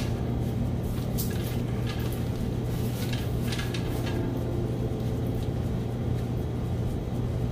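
Nylon flag fabric being handled and worked onto a PVC sail-line pole: a few short rustles and scrapes over a steady low hum.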